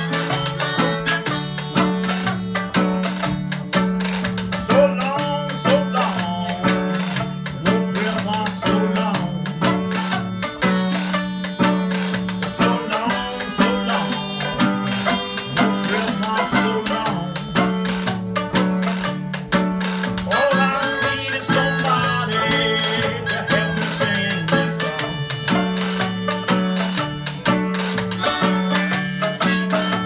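Old-time jug band playing live: banjo and guitar picking over a steady stepping bass line.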